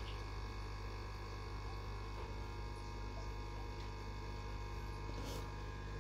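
Steady electrical hum: a low mains-frequency tone with a ladder of fainter steady tones above it, unchanging throughout.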